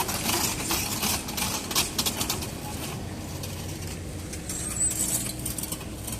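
A Komatsu excavator's diesel engine runs low and steady under rapid metallic clinking and clattering that thins out about halfway through. A brief high chirp comes near the end.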